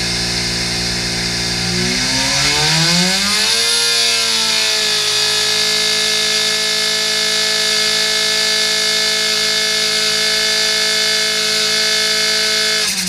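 Supercharged 1293cc A-Series engine running on an engine dyno: revs climb about two seconds in, are held steady at high rpm for several seconds, then start to drop away right at the end.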